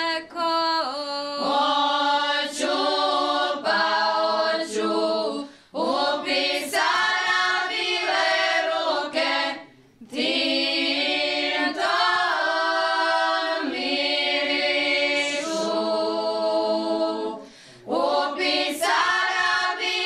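Group of women singing a Šokac folk song unaccompanied, in long held phrases with brief pauses for breath about six seconds in, about ten seconds in, and shortly before the end.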